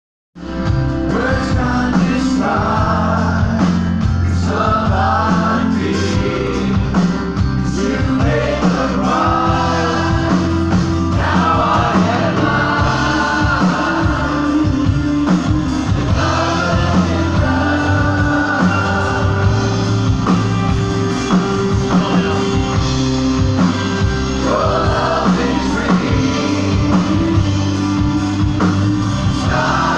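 Live worship band playing a song with a steady beat, a singer leading and the congregation singing along.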